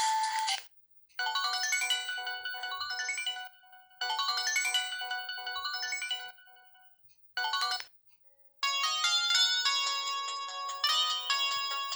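Built-in polyphonic ringtones of a Samsung GT-E1080F mobile phone. A short beeping melody phrase plays twice with a gap between, then a brief snippet, and about eight and a half seconds in a different, busier ringtone melody starts.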